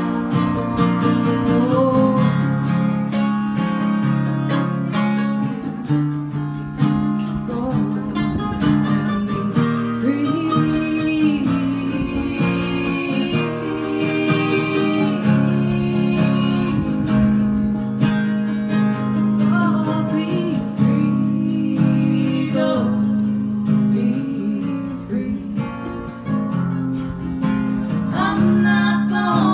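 A small acoustic folk band playing live: strummed acoustic guitar with mandolin, a bowed fiddle that drops out partway, and women singing in harmony.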